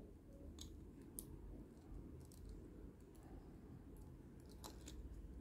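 A few faint, sharp clicks of small plastic toy parts and joints being handled and moved on a Transformers figure, scattered irregularly over a low steady room hum.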